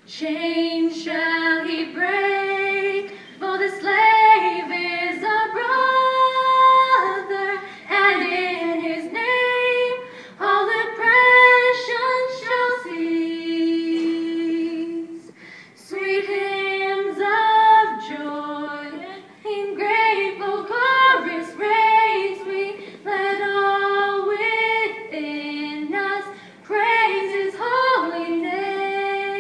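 Small group of teenage girls singing a Christmas song a cappella in harmony, with a long held note about halfway through.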